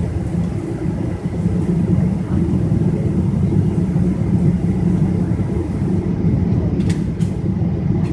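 Steady low cabin rumble of a Boeing 777-200ER's GE jet engines running, heard from inside the passenger cabin. Two brief clicks about seven seconds in.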